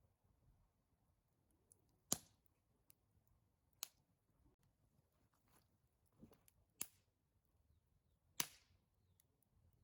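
Wood fire crackling: four sharp pops spread out over several seconds, with fainter ticks in between.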